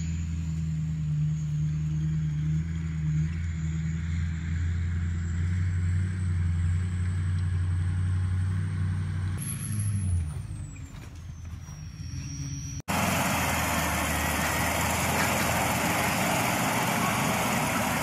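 Toyota Land Cruiser engine running steadily under load while towing a disc harrow through dry soil, the drone dropping away about ten seconds in. After an abrupt cut, another Land Cruiser pulling a disc harrow is heard as a louder engine drone under a rushing noise.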